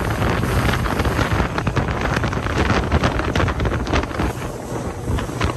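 Wind buffeting the microphone aboard a motorboat running across a lake, with the boat's engine and the splash of water beneath it.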